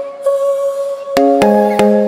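Background instrumental music: notes struck and left ringing over a held tone, with a few new notes about halfway through.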